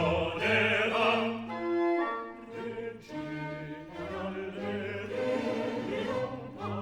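Opera recording sung in Italian: a voice ends a sung line in the first second or two, then the accompaniment plays on with sustained notes.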